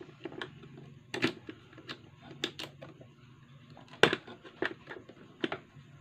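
Irregular clicks and knocks of a screwdriver and screws against a plastic soundbar housing as a speaker driver is screwed in, the loudest knock about four seconds in.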